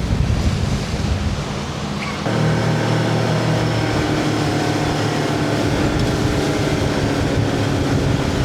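Fishing boat's engine running under way, with wind and water noise. About two seconds in the engine grows louder as it opens up, then holds a steady drone.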